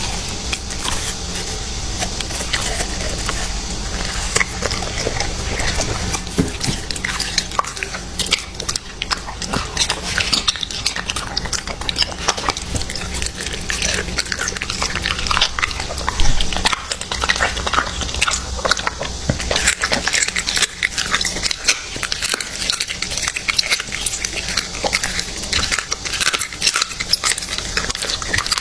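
A corgi biting and chewing raw meat, with a continuous run of quick clicks and smacks of its teeth and jaws.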